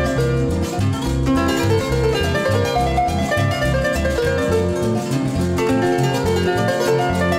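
Instrumental passage of a Paraguayan folk song, with a harp playing quick plucked runs over guitars and a steady alternating bass, and no singing.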